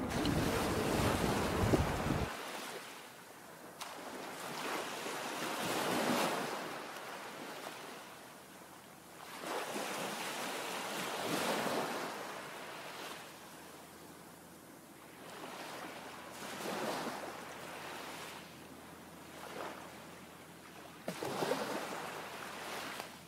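Small waves washing on the shore, with a noisy wash that swells and fades every few seconds. The first two seconds hold a louder low rumble that cuts off abruptly.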